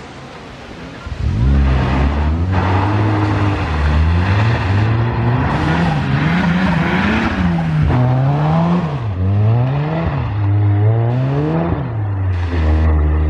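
Ford Sierra RS Cosworth rally car's turbocharged four-cylinder engine coming on hard about a second in, then revving up and dropping back again and again through the gear changes as it accelerates past and away.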